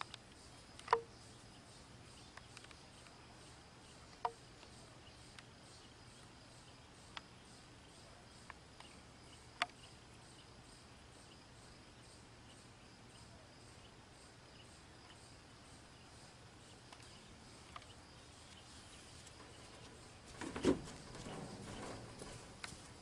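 Faint outdoor ambience with a steady insect hum, broken by a few short, sharp ticks and, near the end, a couple of seconds of louder rustling.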